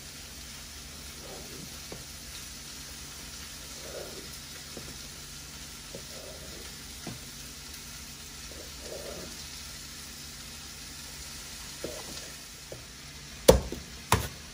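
Chef's knife slicing tomatoes on a plastic cutting board: soft, scattered taps of the blade on the board over a steady hiss. Near the end, two loud knocks as the knife comes down on garlic cloves on the board.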